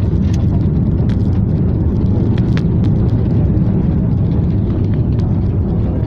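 Jet airliner cabin noise during the landing rollout: a steady, loud rumble of the engines and the wheels on the runway, with a few light clicks over it.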